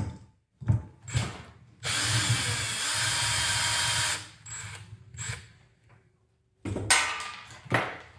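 A power tool runs steadily for about two seconds while parts of an electric fan motor are taken apart, with short metal knocks and clatter before and after it.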